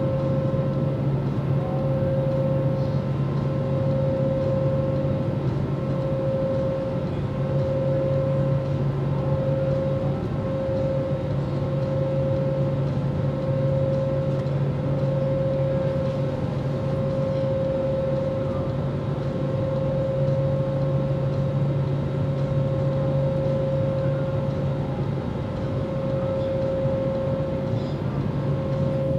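Steady drone of an Airbus A320-family airliner's jet engines and rushing air heard inside the cabin while climbing out after takeoff: a low hum and a steady higher whine over a broad rush, unchanging throughout.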